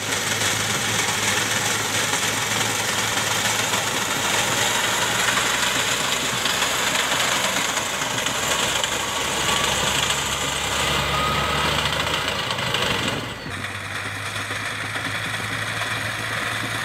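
Tractor diesel engine running steadily under load as it drives a front-mounted reaper cutting wheat. The sound changes abruptly about two-thirds of the way through.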